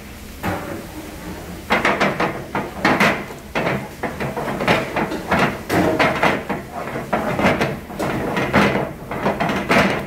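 Heavy metal sauté pan of sauced farfalle being jerked and knocked against the stove grate to toss the pasta without lifting it: irregular clanks and scrapes several times a second, starting about half a second in and running almost without a break from about two seconds in.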